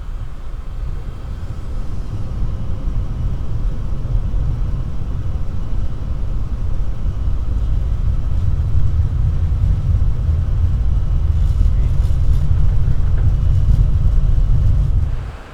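Embraer E175 jet airliner taking off, heard from the cockpit: a deep rumble of the engines at take-off thrust and the roll down the runway, building over the first couple of seconds and then holding steady until it cuts off near the end.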